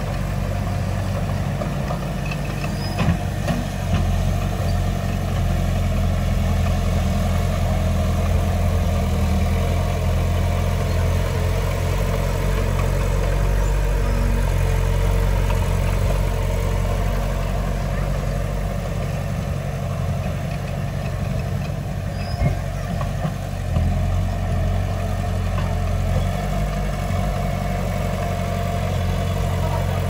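Heavy diesel engine of earthmoving machinery running steadily at low, even revs, with a few brief knocks, once early and twice about three quarters of the way through.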